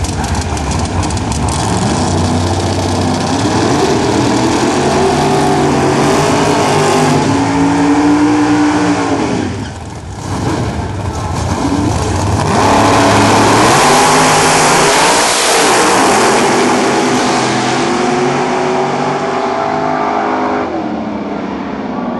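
Drag-racing car engine revving up and down in blips at the start line, dropping off briefly. About twelve seconds in it launches at full throttle, with the pitch climbing through the gears on an eighth-mile pass, then fades near the end.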